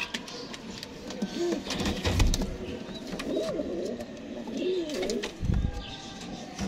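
Chinese owl pigeon cooing: three low, rolling coos spread over several seconds, with a couple of dull low thumps between them.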